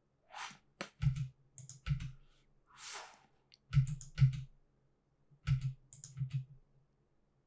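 Computer keyboard keys and mouse buttons clicking in short, irregular taps, often in quick pairs, as shortcuts are pressed and the timeline is worked. Two brief soft hissing sounds fall in between.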